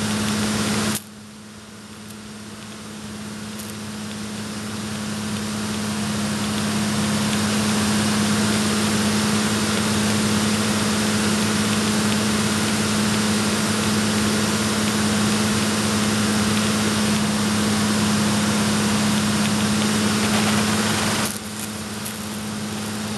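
An oxyhydrogen (HHO) torch flame hissing steadily as it works at cutting a stainless steel rod, over a steady low engine hum. The hiss drops sharply about a second in, builds back up over several seconds, and falls off again near the end.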